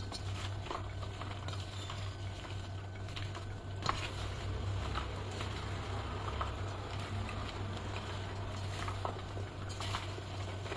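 Cut okra being tossed and mixed with a dusting of cornflour: a run of light, scattered pattering and small clicks, over a steady low hum.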